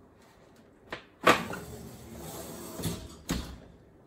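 A metal baking sheet set down on a glass stovetop with a sharp clank about a second in, followed by smaller knocks and a deep thump near the end as the oven door is shut.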